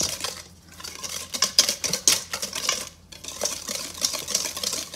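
Hand wire whisk beating eggs and sugar in a stainless steel bowl: rapid rattling clicks and scrapes of the wires against the metal, pausing briefly twice.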